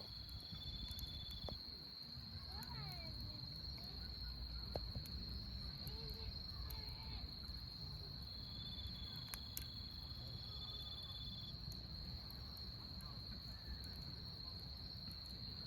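Crickets chirring in one steady, unbroken high tone, with a second insect trilling on and off a little lower. A campfire crackles with scattered sharp snaps over a low rumble.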